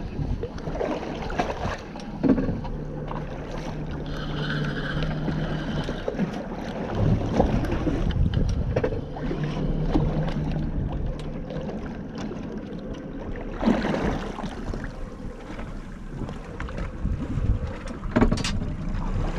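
Boat motor running steadily, with wind buffeting the microphone and scattered knocks and clunks on the boat.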